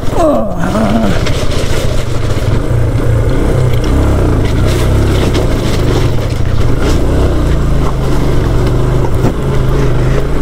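Motorcycle running at steady riding speed, with a heavy low wind rumble on the microphone.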